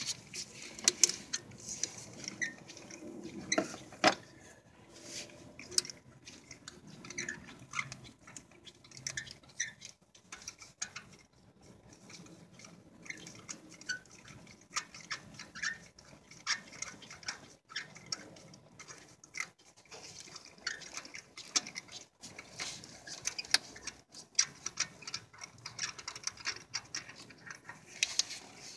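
Scattered light clicks, taps and scrapes of a spark plug socket on an extension and ratchet being worked in an engine's spark plug well.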